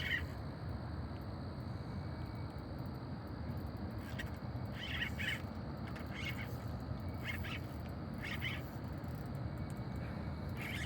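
A bird chirping in short clusters, roughly once a second through the second half, over a steady low outdoor rush.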